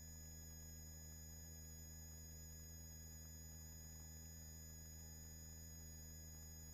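Near silence: a faint, steady electrical hum on the helicopter's intercom recording feed, with the voice channel quiet.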